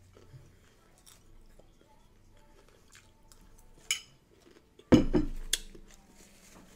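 A metal spoon clicks lightly against a bowl a few times while someone eats, with soft chewing. About five seconds in comes a short, louder voiced sound that falls in pitch and fades over about a second.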